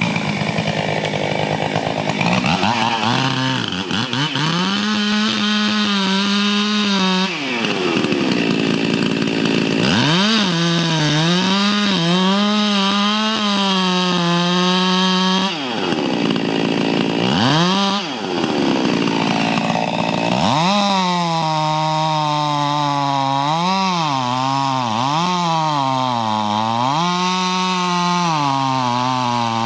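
Two-stroke chainsaw making a felling cut into a cherry tree trunk at full throttle, the engine dropping off and picking back up several times and its pitch wavering as the chain bites into the wood.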